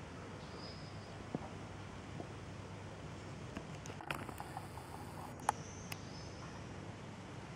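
Quiet outdoor background: a low steady rumble and hiss with a couple of faint high chirps. Around the middle come a few small sharp clicks and handling noise as the camera refocuses and zooms in.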